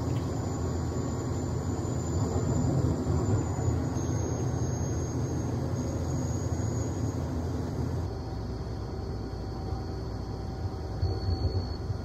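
John Deere combine with a draper header running while harvesting soybeans: a steady engine and threshing rumble. About eight seconds in, the sound drops a little and evens out, with a few light knocks near the end.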